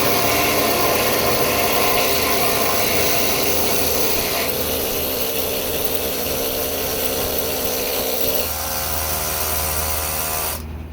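Pneumatic needle guns hammering old paint off steel, a loud, steady, grating chatter that the uploader calls a really annoying noise. Its tone changes about halfway and again shortly before it dies away at the end.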